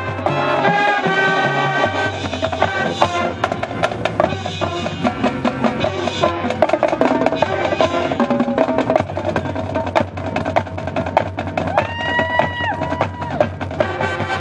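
High school marching band playing a loud, percussion-heavy passage: rapid clicking strokes from the drum line and pit over steady low brass notes, with a held higher note near the end.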